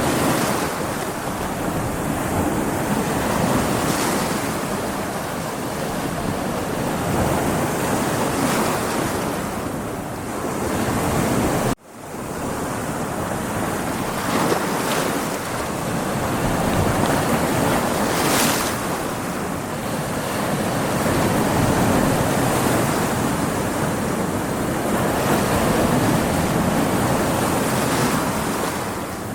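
Ocean waves breaking against rocks: a continuous rush of surf that swells and eases every few seconds. The sound cuts out abruptly for a moment about twelve seconds in, then resumes.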